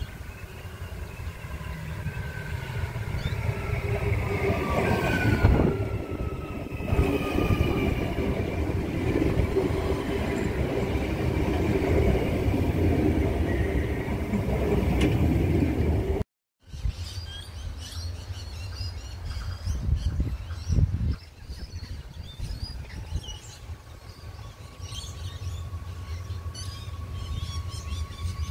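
Electric multiple-unit passenger train (Adelaide Metro A-City 4000 class) running past close by on ballasted track. The rumble of wheels and a traction-motor whine build up, and the whine falls in pitch as the train draws alongside. After a sudden cut about halfway, birds chirp over a faint steady whine from another train approaching in the distance.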